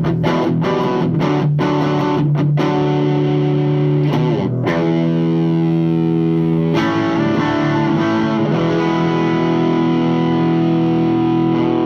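Electric guitar played through a Thickener two-knob overdrive pedal into an Orange Super Crush amp: about a dozen quick distorted chord strikes, then long held chords that ring out, changing twice.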